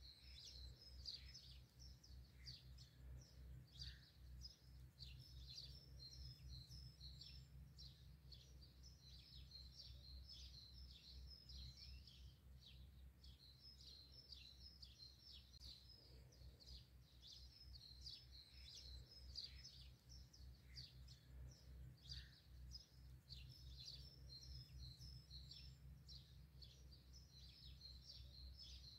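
Faint, continuous chirping and twittering of many small songbirds, short high notes overlapping throughout.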